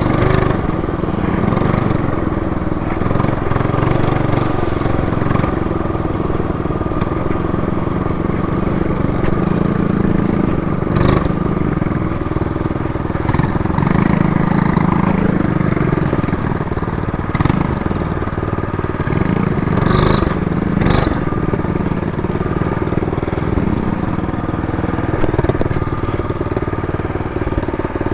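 A small motorbike engine runs throughout, its note rising and falling with the throttle as it is ridden. A few short sharp knocks are heard along the way.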